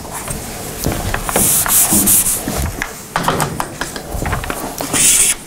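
Chalk being wiped off a blackboard with an eraser, in uneven rubbing strokes.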